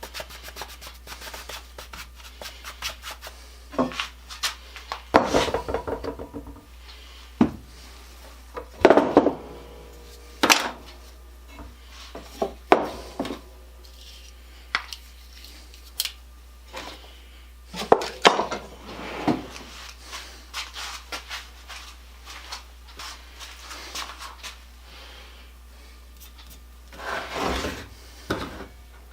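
Irregular rubbing, scraping and knocks of hand work at a workbench, a few louder knocks ringing briefly like metal parts, over a steady low hum.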